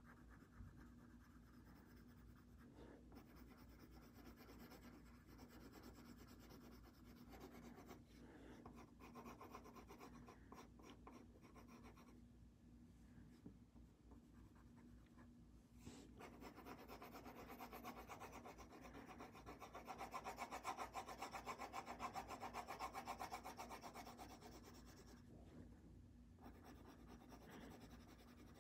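Faint scratching of a coloured pencil shading on paper in quick back-and-forth strokes, with a pause about halfway through and the strokes loudest a little past the middle.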